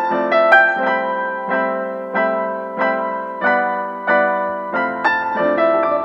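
Background piano music: notes struck at an even pace, about every two-thirds of a second, each ringing and fading before the next.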